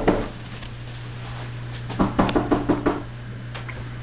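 Rapid knocking on a door: the tail of one burst at the start, then a second burst of about eight quick knocks two to three seconds in.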